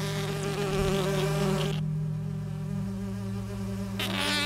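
An insect-like buzz, wavering slightly in pitch, over a low steady drone. The buzz drops away about two seconds in and comes back near the end.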